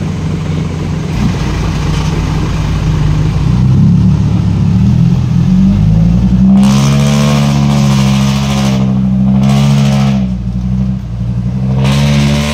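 Loaded Hino 500 FM8J dump truck's six-cylinder diesel engine working hard under load as the truck climbs out of a muddy pit, with a loud exhaust. The engine note rises about four seconds in and grows louder from about six seconds, then dips twice near the end.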